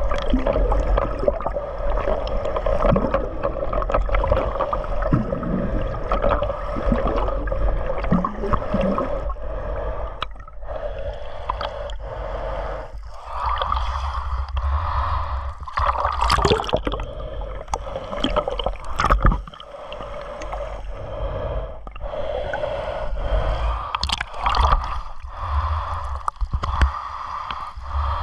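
Sea water sloshing and gurgling around a camera held at and just below the surface in shallow surf, heard muffled with a steady hum underneath. A few sharper splashes or knocks cut through, midway and near the end.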